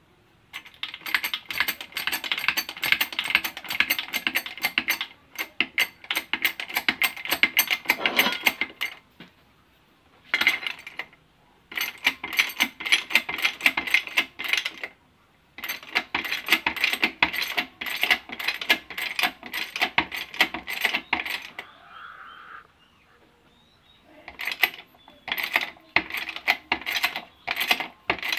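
Hand ratchet wrench clicking fast as it is worked on a socket and extension set in a car's ball joint, in runs of a few seconds with short pauses between.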